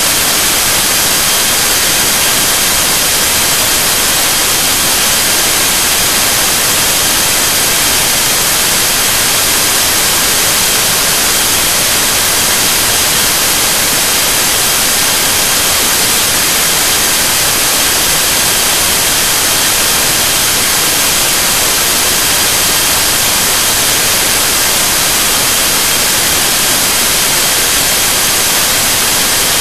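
Loud, steady hiss of static-like white noise with several faint steady tones in it, unchanging throughout.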